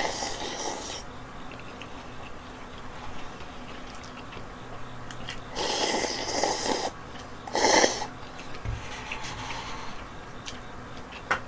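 Slurping instant cup noodles straight from the cup: three noisy slurps, one at the start, a longer one about six seconds in, and a short, loudest one just before eight seconds in.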